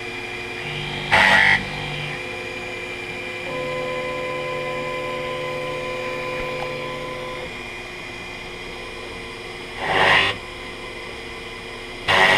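Taig CNC milling machine running: a steady spindle whine, with a steady motor tone for about four seconds in the middle as the axes move. Three short, loud rasping bursts come about a second in, near ten seconds and at the very end, as the countersink cuts into the workpiece.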